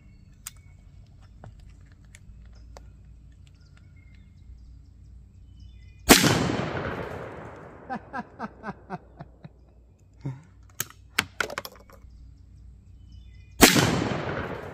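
Two 20-gauge shotgun slug shots about seven and a half seconds apart, each a sharp report that dies away slowly in echo.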